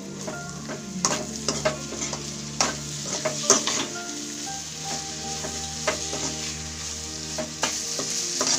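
Vegetables and egg sizzling as they are stir-fried in a pan, with a spatula repeatedly scraping and knocking against the pan at an irregular pace.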